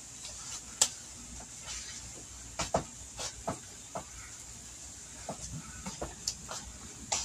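Scattered light clicks and knocks of hands working in a plastic bowl and handling a plastic tub of shredded cheese. The sharpest knock comes a little under a second in.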